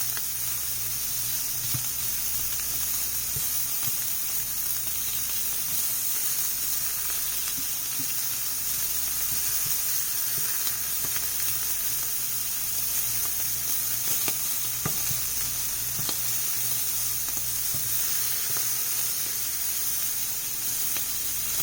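Shrimp in blackened seasoning sizzling steadily in a hot frying pan, with a few light clicks as they are stirred and turned.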